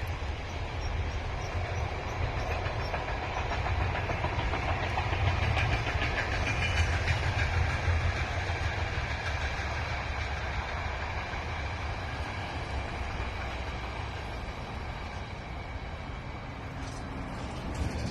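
Freight train passing on the line: a steady rumble with the clatter of wagon wheels over the rails, loudest about four to eight seconds in, then easing off.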